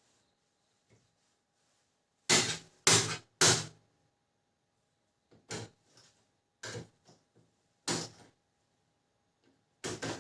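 Plastic parts of a Canon imageCLASS MF221d printer clicking and knocking as a part is pressed and fitted into place: three loud knocks in quick succession about two seconds in, softer clicks through the middle, and more loud knocks near the end.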